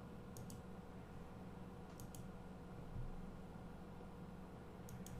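Faint computer mouse button clicks: three quick double clicks, each a press and a release, spread across a few seconds over a low steady hum.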